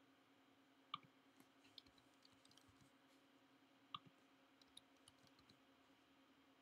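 Two faint computer mouse clicks about three seconds apart, each followed by a run of soft keyboard key taps as numbers are typed, over a low steady electrical hum.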